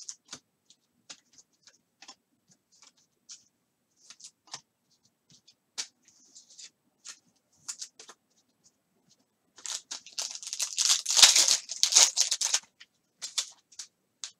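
Scattered faint clicks, then from about ten seconds in roughly three seconds of loud crinkling and tearing as a trading card pack's wrapper is ripped open.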